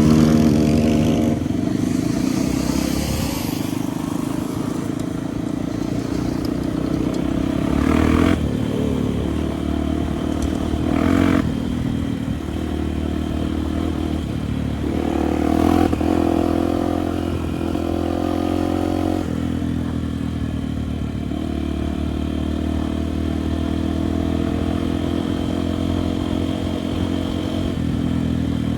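Enduro motorcycle engine running on the move, revving up and easing off several times as the throttle is worked, with occasional clatter over rough ground.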